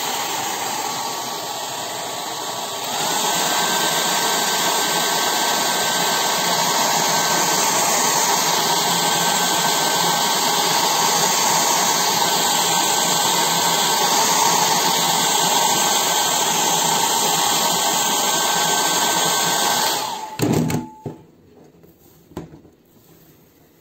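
Handheld hair dryer running, a steady rush of air with a thin motor whine; it gets louder about three seconds in and is switched off near the end.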